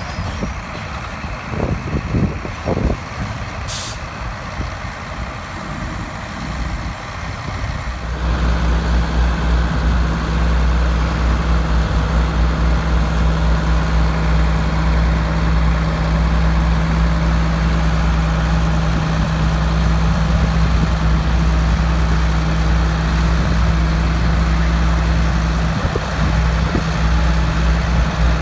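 Heavy diesel engines of a forage harvester and the John Deere tractor running alongside it under steady load, with the hiss of chopped grass being blown into the trailer. About eight seconds in, a steady deep engine drone comes in close and louder and holds.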